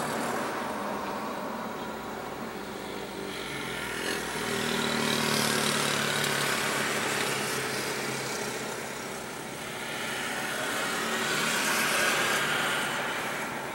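Vehicle engine and rushing noise swelling and fading twice, with peaks about six seconds apart; the first swell carries a low steady engine hum.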